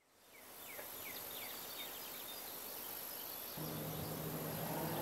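Outdoor ambience fading in: birds chirping in short falling chirps over a steady high-pitched hiss. A low steady drone comes in about three and a half seconds in.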